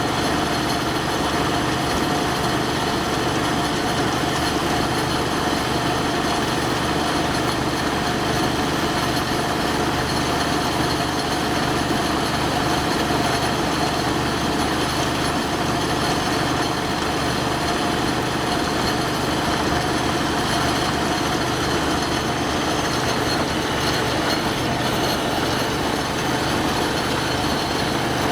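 Old sawmill machinery running steadily at constant speed, a continuous engine-driven mechanical hum with a slow regular pulse underneath.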